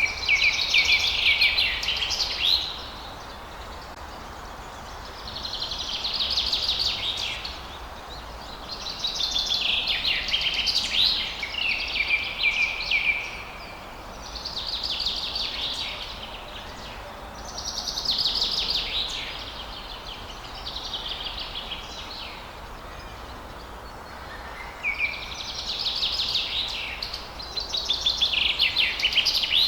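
A songbird singing: phrases of quick trills and warbled notes, each lasting two to four seconds, repeated every few seconds, over a steady low background hiss.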